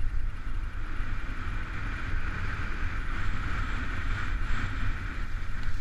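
Wind rumbling steadily on the microphone, mixed with the hiss of Head alpine skis sliding over soft snow during a downhill run; the hiss swells in the middle.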